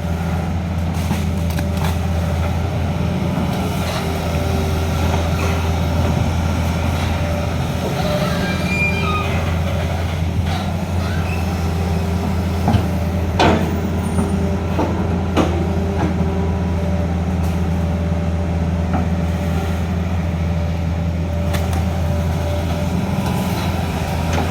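Heavy diesel engine of a Hitachi excavator running steadily while it digs, with a couple of sharp metallic knocks about halfway through and brief squeaks around eight seconds in.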